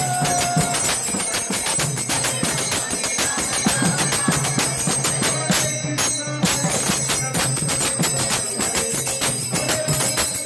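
Devotional kirtan music led by brass hand cymbals (kartals) clashing in a fast, steady rhythm. The cymbals break off briefly about six seconds in.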